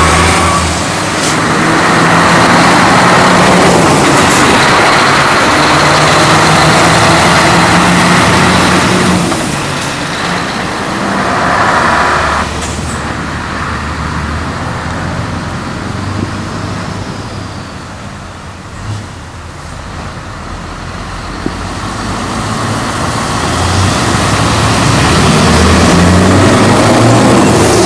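Scania V8 diesel trucks driving past. The first one pulls away, running loudly, then fades. After a quieter stretch of traffic noise in the middle, the next truck approaches and grows louder near the end.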